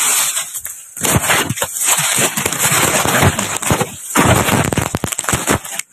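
Dense crackling and rustling right at the microphone: dry grass and a jacket brushing against the phone, with quieter gaps about a second in and about four seconds in.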